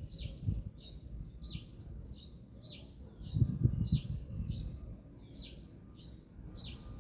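A small bird repeating a short, falling call note about twice a second, with a few rising notes from another call in the middle. Wind buffets the microphone in low, uneven gusts, strongest about halfway through.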